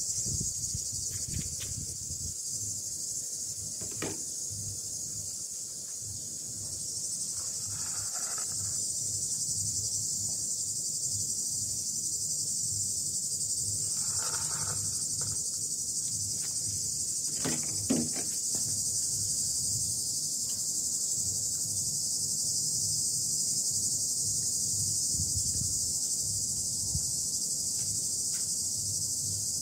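Steady high-pitched chorus of insects, crickets or cicadas, over the soft clicks and smacks of kittens eating from a bowl. There are two brief higher sounds about a quarter and half way through, and a sharper knock about two-thirds of the way through.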